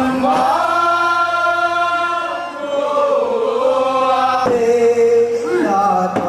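Voices chanting in long held notes, the pitch sliding up into each note and wavering between them, with a lower phrase starting near the end.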